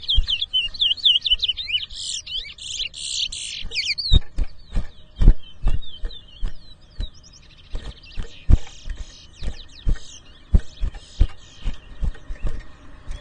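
Towa-towa (chestnut-bellied seed finch) singing a fast, high warbling song of quick chirps, loudest in the first few seconds and then fainter. Sharp clicks or knocks sound repeatedly throughout.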